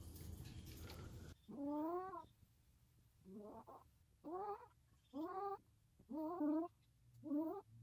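A domestic cat meowing over and over: six drawn-out meows about a second apart, starting about a second and a half in, each rising and then falling in pitch.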